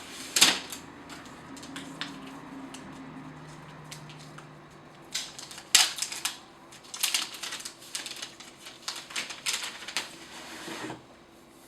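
Irregular clicks, taps and short scrapes of hands handling a new iPad and its plastic packaging, thickest about five to six seconds in and again from about seven to ten seconds in.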